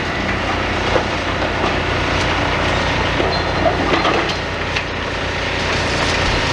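Demolition excavators working: a steady engine rumble with a few light knocks and scrapes of rubble and metal.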